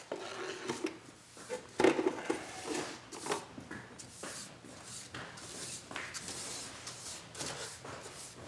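A broom sweeping a floor: irregular brushing strokes with a few light knocks, the loudest about two seconds in.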